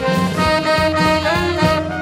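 Live band playing social-dance music: a melody of held notes with a short pitch slide about midway, over a steady beat.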